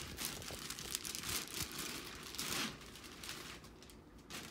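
Clear plastic bag crinkling and rustling as it is pulled off a drain snake, dying down toward the end, with a single sharp knock near the end.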